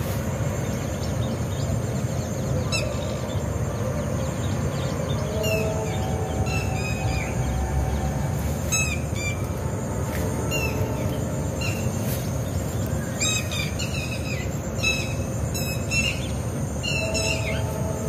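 Birds calling in short, downward-sliding calls, repeated irregularly and more often in the second half, over a steady low background rumble.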